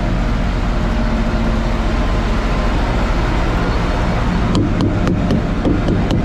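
Semi-truck diesel engine running steadily with a deep, even drone. A few sharp clicks come in the last couple of seconds.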